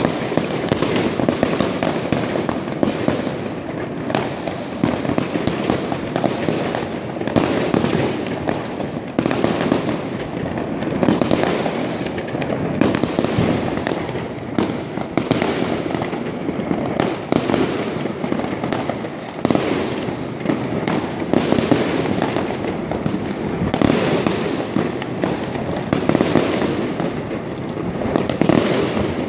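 Fireworks and firecrackers going off all over a town, a dense, continuous barrage of bangs and crackles overlapping without a pause.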